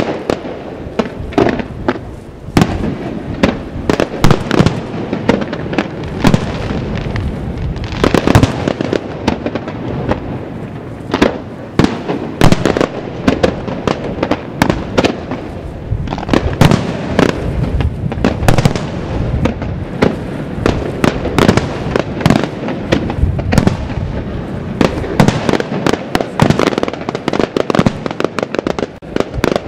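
Aerial firework shells launching and bursting one after another in a professional display: a dense run of sharp bangs, several a second, with louder booms standing out every few seconds.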